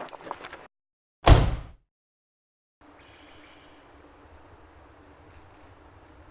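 A guitar music cue cuts off, followed about a second in by a single loud hit with a deep low end that dies away within half a second. After a moment of silence, faint steady background ambience begins.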